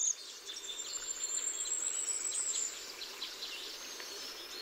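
Countryside ambience of small birds chirping and twittering with insects, including a high thin trill lasting about two seconds near the start, over a faint steady background hiss.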